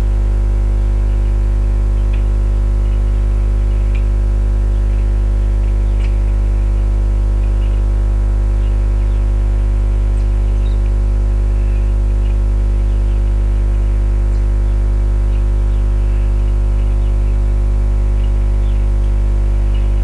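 Loud, steady electrical mains hum with many even overtones, unchanging throughout, with a few faint brief high-pitched sounds scattered over it.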